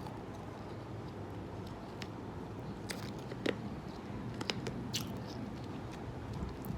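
Ice being chewed: scattered sharp crunches and cracks, about half a dozen, over a steady low background noise.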